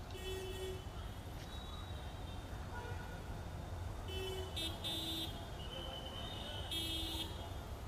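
Street traffic: a steady low rumble of vehicles with repeated short car horn toots scattered through it.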